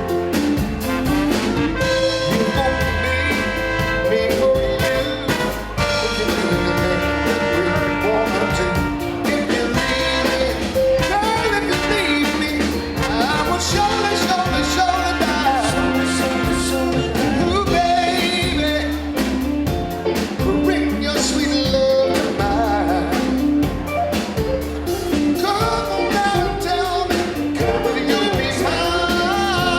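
Music: a soul song played by a band with horns, singing and a steady bass line.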